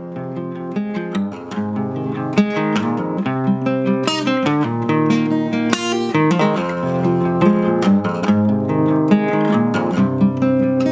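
Background music: acoustic guitar strummed and picked, a steady instrumental.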